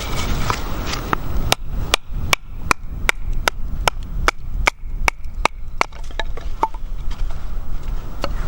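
Wooden baton repeatedly striking the spine of a Wika 1T fixed-blade knife to drive it through a log. It makes a steady series of sharp knocks, about two and a half a second, starting about one and a half seconds in and stopping near seven seconds.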